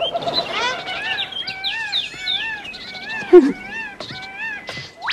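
Birds calling: a busy run of repeated arching chirps, each rising then falling in pitch, with a louder, lower sliding cry a little past three seconds in.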